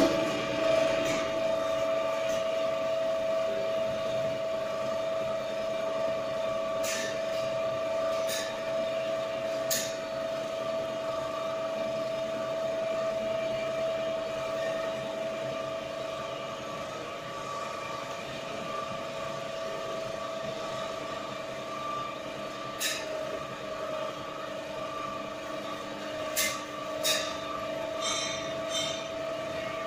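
Lift car travelling in its hoistway: the drive runs with a steady whine at one pitch, starts abruptly and keeps an even level, with a few short clicks and knocks from the car along the way.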